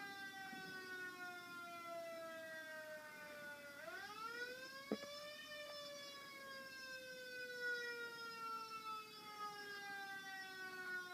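Faint wailing siren: one pitched tone with many overtones falls slowly, sweeps back up about four seconds in, then falls slowly again. A sharp click sounds about five seconds in.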